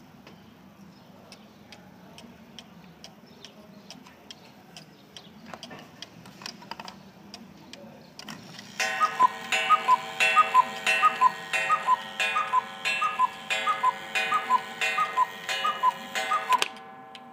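Mechanical cuckoo clock ticking, then striking twelve: about nine seconds in it gives twelve two-note falling cuckoo calls from its bellows, about one and a half a second, each with a sharp strike on its gong, then stops.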